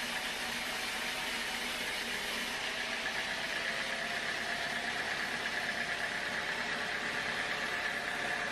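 Sawmill machinery running steadily, with a high steady whine that grows stronger a couple of seconds in.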